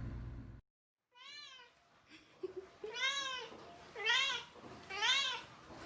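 A cat meowing four times, each a short call that rises and falls in pitch. The first is fainter, and the last three come about a second apart.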